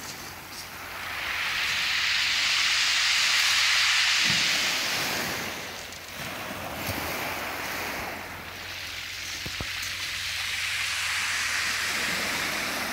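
Surf breaking on a shingle beach: two long washes of hissing water that swell and fade, one in the first few seconds and another near the end.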